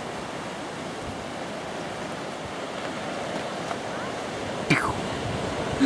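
A steady rushing outdoor noise, with a short falling squeak about three quarters of the way through.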